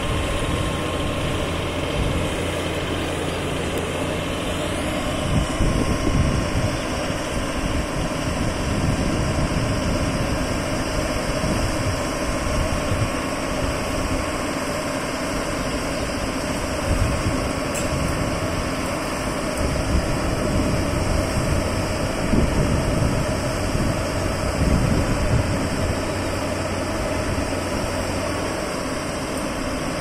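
Diesel engine of a truck-mounted Putzmeister concrete boom pump running steadily, driving the hydraulics while the boom unfolds.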